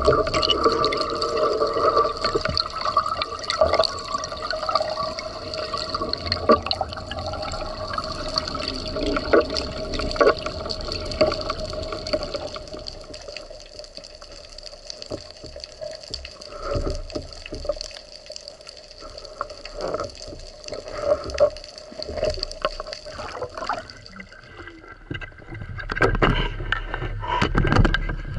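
Muffled underwater sound from a camera underwater: water moving, with scattered clicks, knocks and gurgles. Near the end it changes to open air, with wind on the microphone and water slapping against an inflatable boat.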